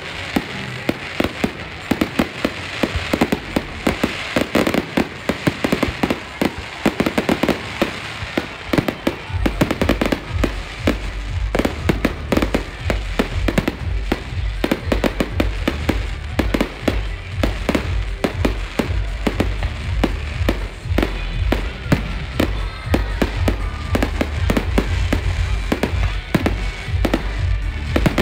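Fireworks display: aerial shells bursting in rapid, overlapping bangs with crackling, all the way through. About nine seconds in, a deep steady rumble joins beneath the bangs.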